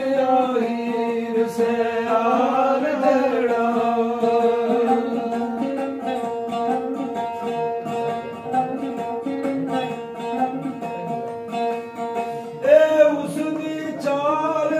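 A man singing Sufi devotional poetry (arifana kalam) in long, ornamented held notes over a steady instrumental drone, with light percussion strikes. The voice comes in stronger near the end.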